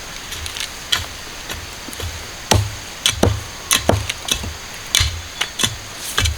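A blade chopping: a run of irregular sharp strikes, each with a dull thud, about one to two a second and heavier from about two and a half seconds in.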